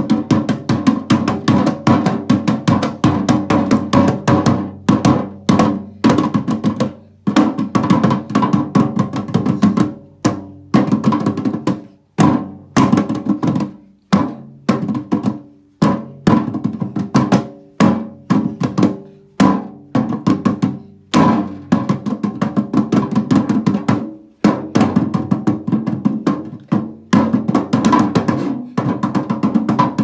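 Two hands drumming on a clear plastic box, with fast runs of slaps and taps broken by short pauses.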